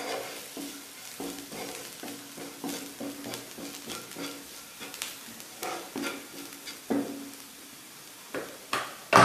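Spatula stirring and scraping fried onions and spices around a nonstick frying pan, with the fry sizzling in the oil. Irregular scrapes and taps against the pan, with a sharper knock near the end.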